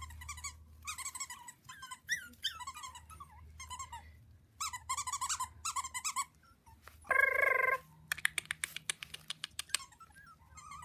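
Havanese puppies yipping and squeaking in short bursts as they play-fight, with one louder, longer yelp a little after seven seconds. A quick run of clicks follows it.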